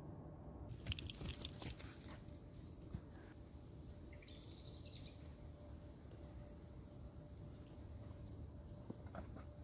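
Faint outdoor ambience with a short bird call about four seconds in, and a few clicks and rustles near the start.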